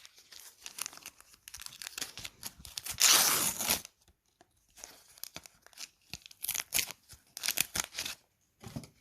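A trading-card pack wrapper being crinkled and torn open, with one loud tear lasting most of a second about three seconds in and short crackling rustles of the wrapper before and after it.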